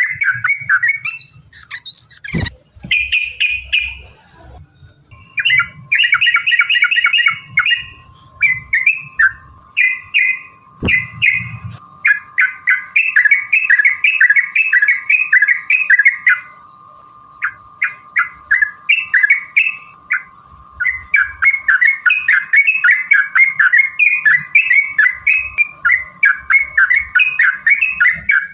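Yellow-vented bulbul song: fast, bubbly chattering phrases repeated almost without pause, breaking off briefly twice. A faint steady whine runs beneath the song, and there are a couple of sharp clicks.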